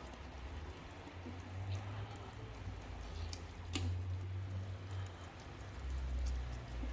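Chicken pieces being added and worked into a pot of biryani masala: a few light clicks and faint wet handling sounds over a steady low hum.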